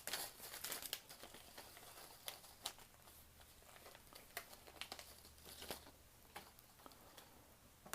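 Faint, scattered clicks and light rustling of small parts being handled.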